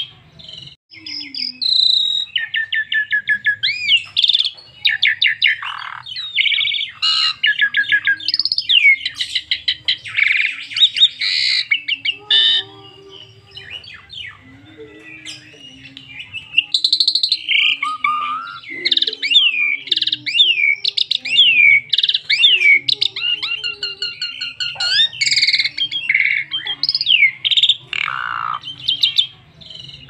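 Asian pied starling (jalak suren) singing a long, varied song of rapid repeated chirps, gliding whistles and harsh notes, with a quieter stretch about halfway through.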